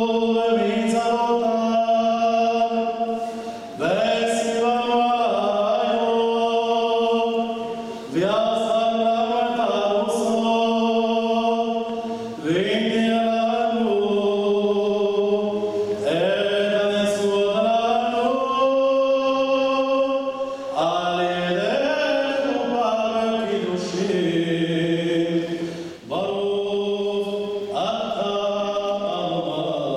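A voice chanting slowly, holding long notes and sliding between them, in phrases of about four seconds with short breaks for breath.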